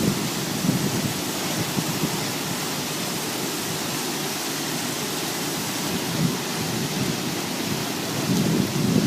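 Five-brush automatic car wash machine running: a steady rush of spraying water with a low rumble beneath it.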